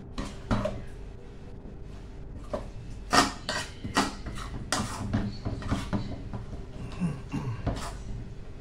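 A utensil clinking and scraping against the side of a metal pot while batter is stirred, in irregular knocks, the loudest about three seconds in.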